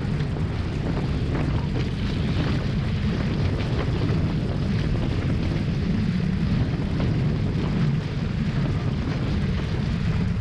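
Strong wind buffeting the microphone in a steady deep rumble, with water rushing and splashing past the hulls of a Hobie 16 catamaran sailing at speed.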